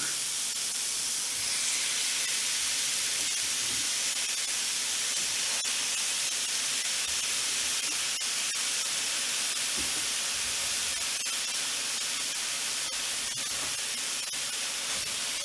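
Pieces of raw chicken sizzling in a hot nonstick frying pan: a steady hiss with faint scattered pops.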